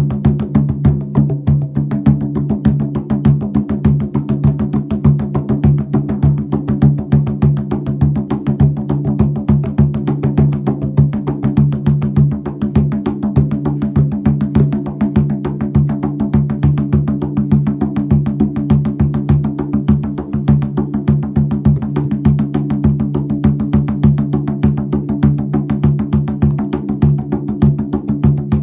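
Drum music: a fast, even run of drum strokes over a steady low drone-like hum.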